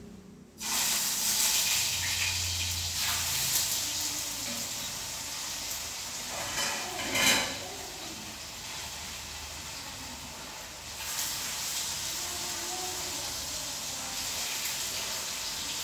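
Food frying in hot oil in a pan on a gas stove: the sizzle starts suddenly about half a second in, as the food goes into the pan, and runs on steadily. It flares up briefly about seven seconds in.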